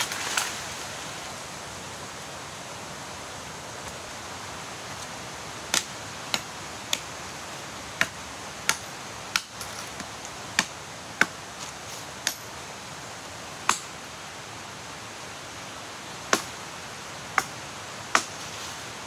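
Machete chopping into a thin tree trunk: about a dozen sharp strikes at uneven intervals, starting about six seconds in, over a steady background hiss.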